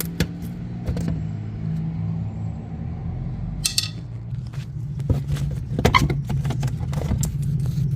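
Plastic push-in retaining tabs being pried out with a clip-removal tool: irregular clicks and knocks, busier in the second half, with a short scrape under four seconds in, over a steady low hum.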